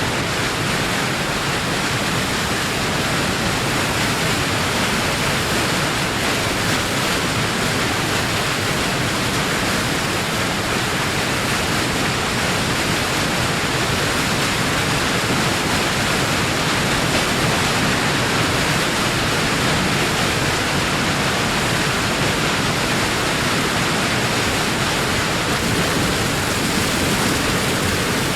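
Heavy waterfall: a steady rush of falling water with a low rumble beneath.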